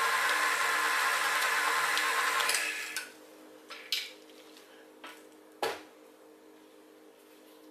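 KitchenAid Artisan stand mixer running, its flat beater churning thick fish paste, then switched off under three seconds in. A few clicks and one louder knock follow as the tilt head is unlocked and raised.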